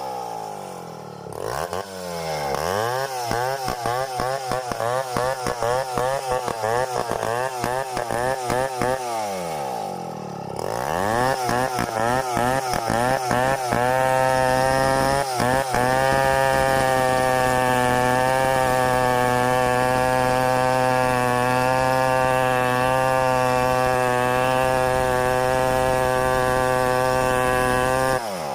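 Stihl 070 two-stroke chainsaw with the throttle blipped up and down about twice a second for several seconds, then held at steady high revs from about halfway through, as it runs through the log in a freehand milling cut.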